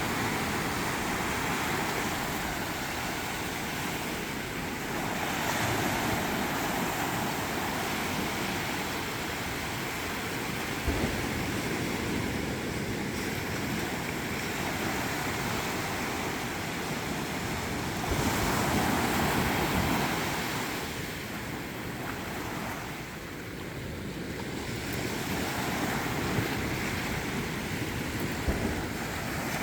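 Sea waves breaking and washing up on a beach, swelling and easing over several seconds, loudest about two-thirds of the way through.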